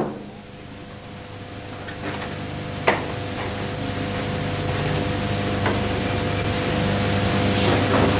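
Steady hum and hiss that grows gradually louder, with a few faint clicks.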